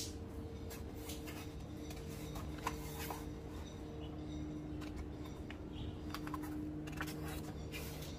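Hands rubbing and pressing an adhesive-backed EVA foam deck sheet down onto a boat floor, with scattered rustles and light clicks from the sheet and its backing paper, over a faint steady hum.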